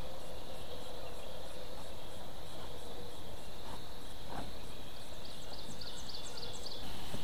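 Outdoor rural ambience: a steady hiss with faint, evenly repeating high chirps, two light knocks around the middle, and a quick run of high falling chirps about five seconds in.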